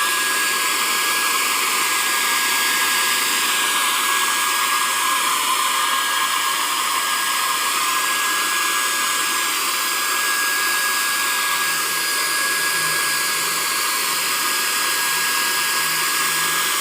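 Steady rushing noise from a small motor-driven blower, with a constant high whine.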